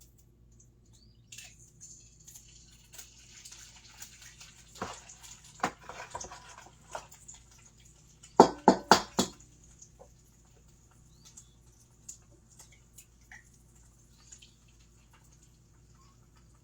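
Frying-pan sizzle that starts suddenly a little over a second in, as an egg goes into hot fat for frying, with scattered clinks of kitchen utensils. A quick run of four sharp knocks a little past the middle is the loudest sound; the sizzle then settles to a faint hiss.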